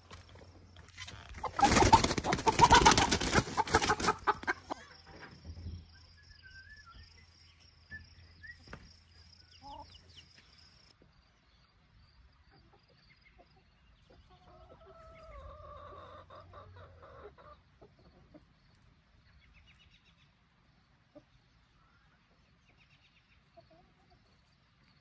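Chickens clucking, with a loud burst of wing-flapping and squawking about two seconds in that lasts about two seconds. A drawn-out call comes about fifteen seconds in, and the rest is quiet scattered clucking.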